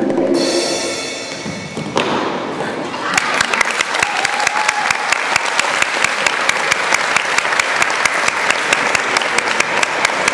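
The routine's music ends on a last held chord that fades out, and there is a single knock about two seconds in. From about three seconds in, an audience claps and applauds steadily.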